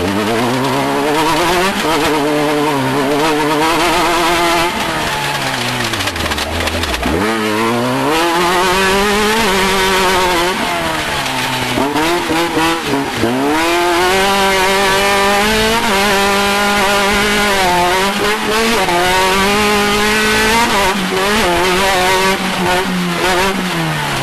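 Off-road race vehicle's engine revving up and dropping back again and again as the driver accelerates, lifts and shifts, with a rough rattle over the top.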